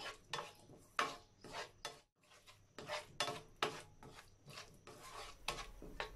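Black spatula stirring and scraping chopped vegetables in sauce around a nonstick frying pan: short scraping strokes, about two to three a second, with a brief break about two seconds in.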